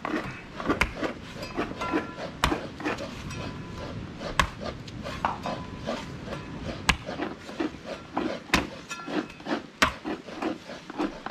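Cane knife chopping into the husk of a green coconut: about six hard chops, one every second or two, as the top of the nut is cut off to open it for drinking.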